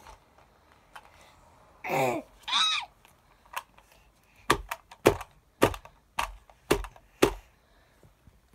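A child's two short high-pitched vocal sounds, then a run of about nine sharp knocks over some four seconds as toys and hands are banged down on a small plastic play table.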